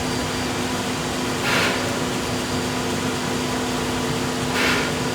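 Sawmill machinery running with a steady hum, broken twice by a short hissing swell about three seconds apart.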